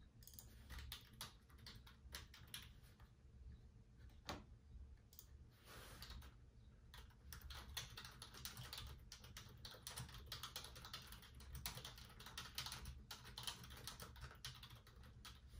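Faint typing on a computer keyboard: quick, uneven key clicks, sparse at first and coming thicker and faster from about halfway through.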